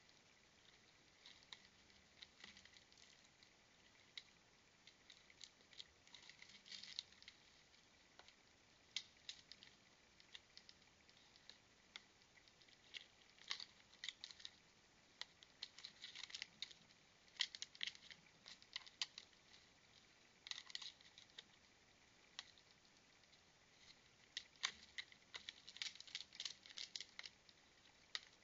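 A raccoon's claws scratching and clicking on tree bark and a tube bird feeder as it climbs and hangs from it: faint, irregular scratches and ticks in small clusters.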